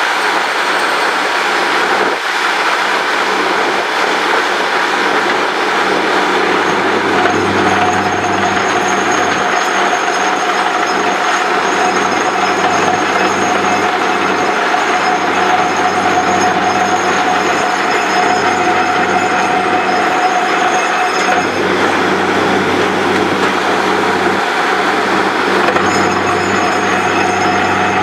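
Truck-mounted borewell drilling rig running while drilling, a steady loud mechanical clatter and rumble over a low hum. A whine sets in about a quarter of the way through, drops out about three quarters through, and returns near the end.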